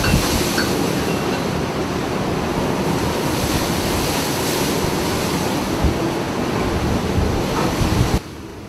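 Storm wind blasting the microphone over heavy seas breaking, a loud, dense roar; it cuts off abruptly near the end, giving way to a much quieter steady background.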